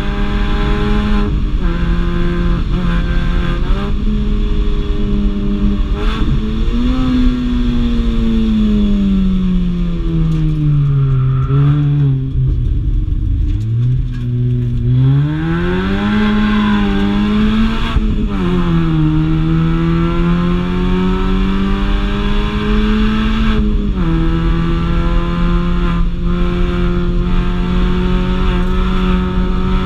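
Mini Cooper engine running hard under load. It holds a steady pitch, falls steadily as the car slows about seven to thirteen seconds in, then climbs again as it accelerates. A sudden drop in revs comes a few seconds from the end, then the note holds steady again.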